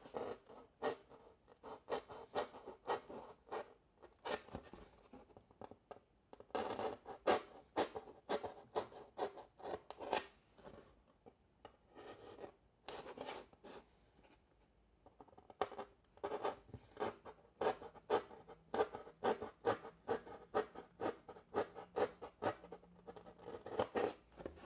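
Hobby knife blade cutting through paper-faced foam board in many short strokes, a scratchy crackle with a couple of brief pauses partway through.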